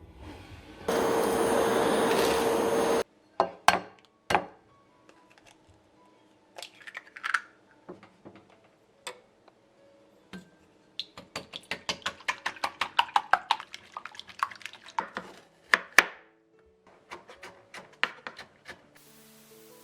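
Woodworking sounds. A power tool runs loudly and steadily for about two seconds near the start. Sharp knocks on wood follow, then a fast run of taps, about four or five a second, before a last louder knock.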